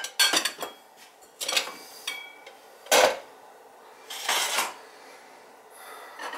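Cut raw potato and carrot pieces being shifted about in a roasting pan, with a handful of separate knocks, scrapes and clinks of kitchenware; one clink about two seconds in rings briefly, and the loudest knock comes about three seconds in.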